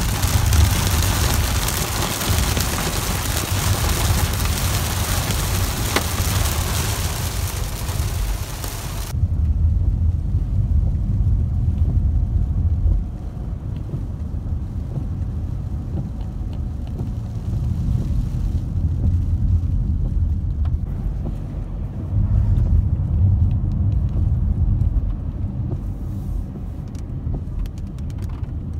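Heavy rain drumming on a car for about nine seconds, cutting off abruptly. Then the low rumble of the car driving on a wet road, heard inside the cabin, swelling and easing, with a few faint ticks near the end.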